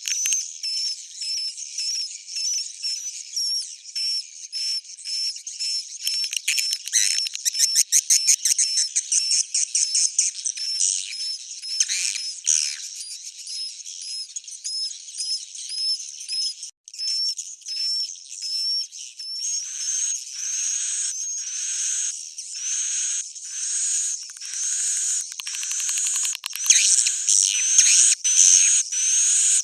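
Recorded edible-nest swiftlet calls played as a swiftlet-house lure sound: rapid, high-pitched chirps repeating without pause, speeding into a fast trill about a quarter of the way in and again near the end.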